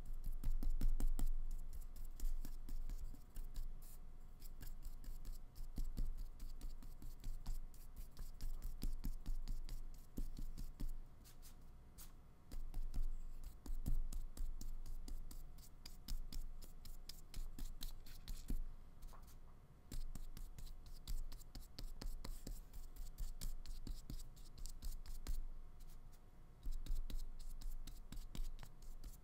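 A small flat paintbrush stroking black acrylic paint onto paper: many short, irregular scratchy brush strokes.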